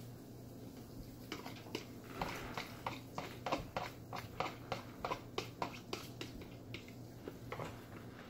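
A run of light clicks and taps from a kitchen utensil knocking against a bowl or dish, about two or three a second, starting a second or so in and stopping near the end.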